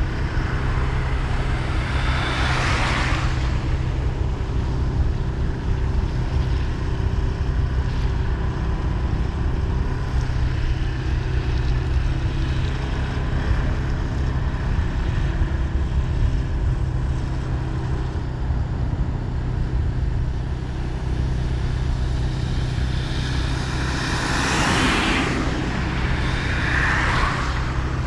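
A vehicle's engine running steadily on the road, with road noise. Two louder whooshes rise and fall, one about two seconds in and another near the end.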